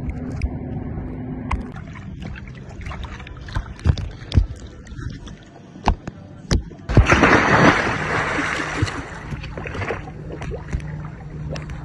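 Sea-Doo Fish Pro engine running with a steady low hum and scattered knocks and bumps, then a loud splash of water about seven seconds in that rushes on for a few seconds before the hum is left again.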